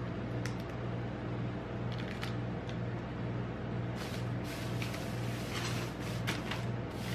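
Plastic wrappers of Galaxy Minis chocolate bars crinkling and rustling on a metal ice cream roll pan as gloved hands spread them out: a few single crackles at first, then dense rustling from about halfway. A steady low hum from the pan's refrigeration runs underneath.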